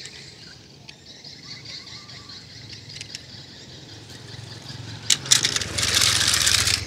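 Faint high-pitched chirping in the background. About five seconds in, a die-cast metal toy truck clatters into a plastic basket full of other toy trucks: a couple of clicks, then over a second of rattling.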